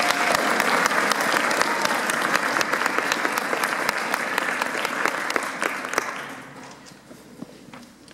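Audience applauding, dense clapping that dies away about six to seven seconds in.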